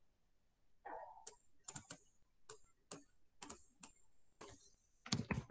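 Faint, irregular clicking of a computer mouse and keys, about a dozen sharp clicks starting about a second in, with a louder cluster near the end.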